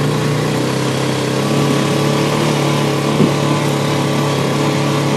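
ATV engine running steadily at an even pitch, with a short knock about three seconds in.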